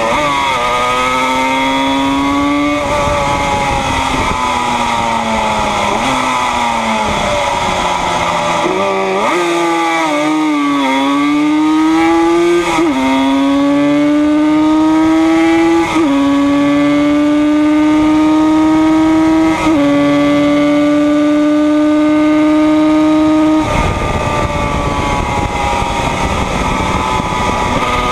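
Yamaha RD 250's two-stroke parallel-twin engine at racing speed, held high in the rev range. The pitch climbs in each gear and drops at each upshift, wavers through a slower section, then runs through three more quick upshifts. Near the end the engine note falls away under wind rush as the throttle closes.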